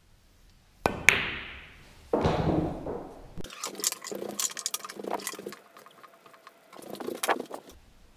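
9-ball break shot: the cue tip clicks against the cue ball and a fifth of a second later the cue ball smashes into the rack, with the pool balls clattering, clicking together and rolling across the table. From about three and a half seconds in, a different sound takes over for about four seconds: rapid clicks with a held tone.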